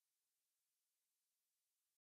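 Near silence: only a very faint hiss.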